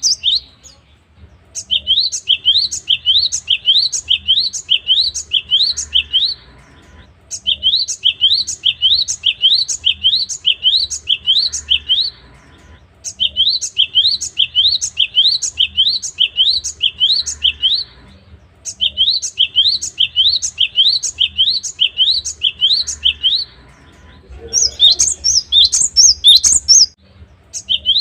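Gelatik batu (cinereous tit) singing: a rapid string of repeated rising notes, about three a second, in phrases of about five seconds with short pauses between. Near the end comes a different, higher and louder phrase.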